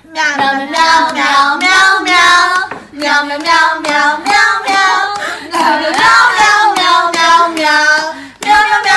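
A high-pitched voice singing or wordless vocalizing in wavering phrases with short breaks.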